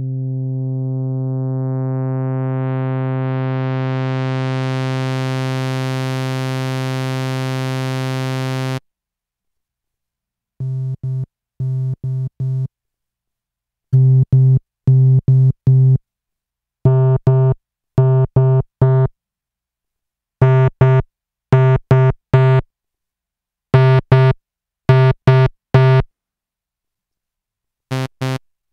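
Moog Little Phatty analog synthesizer holding one low note while its filter sweeps open, the tone growing steadily brighter until it stops about nine seconds in. After a short gap, Omnisphere 2.5's emulation of the Little Phatty plays short repeated low notes at the same pitch in clusters, getting brighter and harsher as its overload drive is raised. The hardware Little Phatty's own overload notes start near the end.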